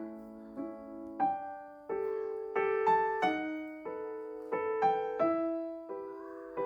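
Background piano music: slow, gentle melody of struck notes that ring and fade, a new note or chord about every half second.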